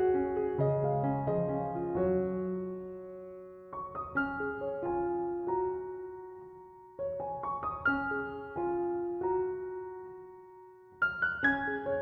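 Slow, gentle piano music. Chords and melody notes are struck and left to fade, with a fresh phrase entering about every three to four seconds.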